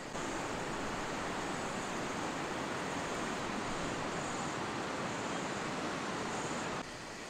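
Steady rushing of a flowing river, cutting in abruptly just after the start and cutting off shortly before the end, with faint high-pitched trills coming and going above it.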